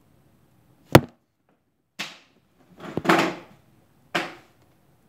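Handling noise: one sharp knock about a second in, then three short scraping rustles that fade quickly.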